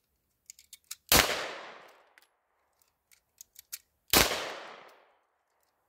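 Two shots from a Walther PDP 9mm semi-automatic pistol, about three seconds apart, each followed by about a second of echo.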